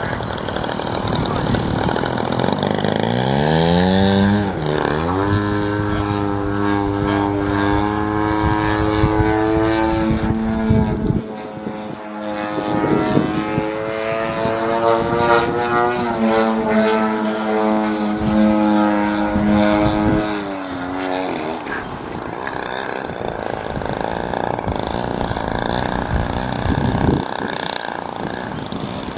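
Extreme Flight Slick 580 3D aerobatic RC plane's motor and propeller under changing throttle. It rises in pitch about three seconds in and holds steady high stretches, with drops around eleven and twenty-one seconds. After that it gives a rougher, less even sound.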